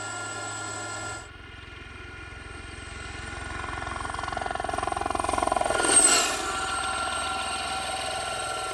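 Aérospatiale Gazelle helicopter: a second of steady cabin noise, then a Gazelle flying toward and past, its rotor and turbine noise building to a peak about six seconds in, where a high whine drops in pitch as it goes by. It then settles into a steady drone.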